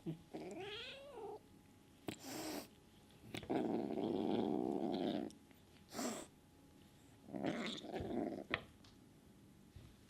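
Bengal kitten growling and hissing as an aggressive warning to other cats: a wavering, yowling call near the start, short sharp hisses about two and six seconds in, a long low growl of nearly two seconds around the middle, and another growl near the end.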